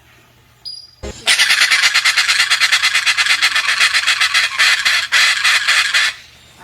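Pesquet's parrot giving a long, harsh, rasping scream with a rapid pulse, starting about a second in and lasting about five seconds.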